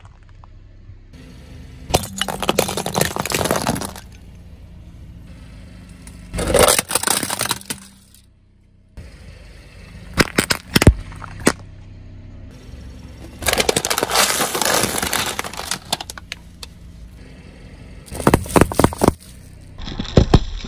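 A car tyre rolling over and crushing packaged snacks and drink cartons: several bursts of crackling, crunching and snapping plastic a few seconds apart, with sharp snaps about ten seconds in and a burst of crackling right at the end.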